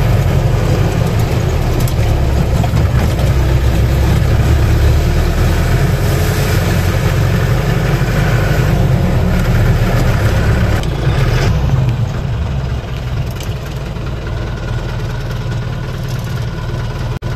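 Car engine and road noise heard from inside the cabin while driving, a steady low rumble that gets quieter about twelve seconds in as the car eases off.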